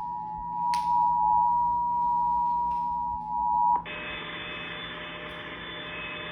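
Emergency Alert System attention signal: the steady two-tone alert (853 and 960 Hz sounded together), cutting off suddenly about four seconds in. A quieter steady hiss follows.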